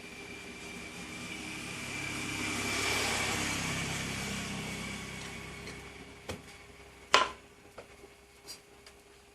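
A motor vehicle passing by, swelling to a peak and fading away over about five seconds. It is followed by one sharp click and a few lighter clicks.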